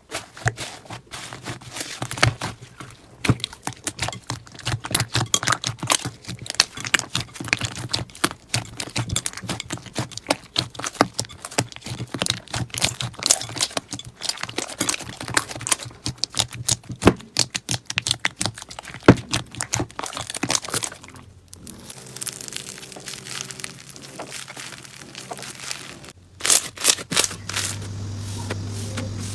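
Slime being squeezed and worked by hand, making a dense run of small crackles and pops, with a low hum underneath. The crackling eases off for a few seconds past the two-thirds mark, then picks up again near the end.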